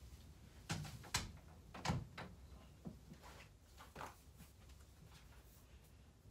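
A handful of faint knocks and thumps, the loudest about two seconds in, as a bedroom door is shut and someone moves about the room.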